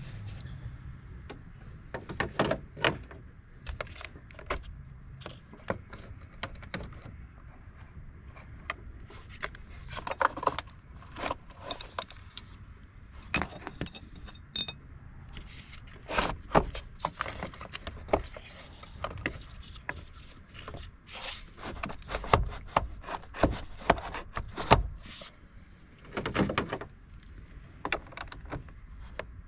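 Irregular metallic clinks, clicks and knocks of hand tools, a socket ratchet with extension among them, working on a car battery's terminals and fittings. Ratchet clicking near the end.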